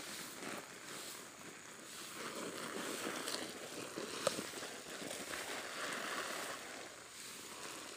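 Garden hose spraying a fine rain-like shower of water onto soil-filled sacks, a steady hiss and patter that swells about two seconds in and eases near the end, with one sharp click about four seconds in.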